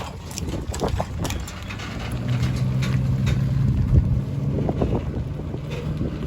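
A large engine running, with a low steady hum that becomes stronger about two seconds in, under wind buffeting the microphone and a few scattered clicks.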